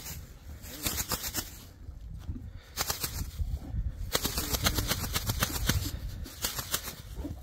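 Hoofbeats of a young horse trotting and cantering on paddock ground, in quick runs of knocks that come thickest in the middle, over a steady low rumble.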